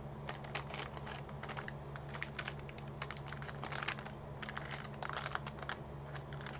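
Wax-paper wrapper of a 1990 Topps football card pack crinkling and crackling in the hands as it is peeled open and the cards are worked out, a run of small irregular crackles. A steady low hum lies underneath.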